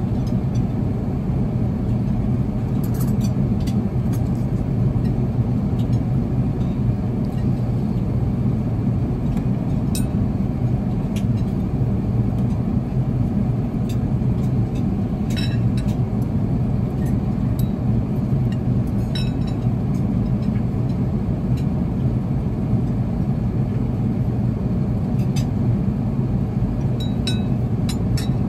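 Steady low rumble of an Airbus A380's cabin in flight, with a knife and fork clinking against a china plate now and then.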